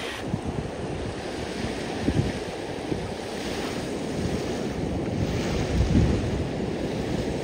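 Small waves washing up a sandy shore, with gusts of wind buffeting the microphone.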